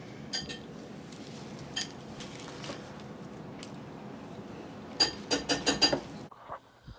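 A few scattered light clinks and taps at a table, then about a second of quick rattling clicks near the end as a small plastic container of sprinkles is shaken.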